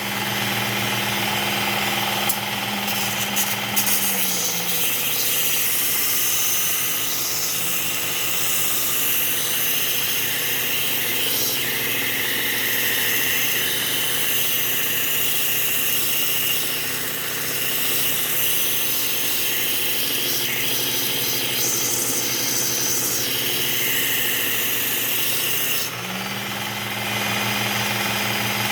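Small belt sharpener with a Cubitron 120-grit belt running, with a pruning blade held against the belt to sharpen its edge: about four seconds in the motor hum drops in pitch under the load and a rasping grind sets in, and a couple of seconds before the end the blade comes off and the motor hum rises back.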